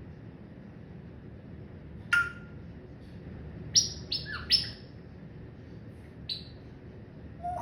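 Pet parrot giving short, sharp high calls: one about two seconds in, a quick run of three around the middle, and another a little before the end.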